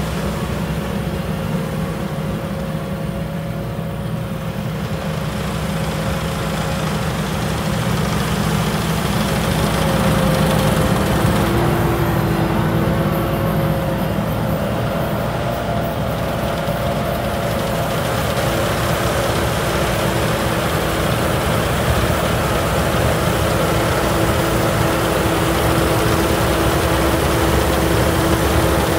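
Yanmar YH6115 rice combine harvester running steadily as it cuts and threshes rice: a diesel engine drone with steady whining tones from the machinery on top. It grows louder over the first ten seconds or so as the machine comes closer.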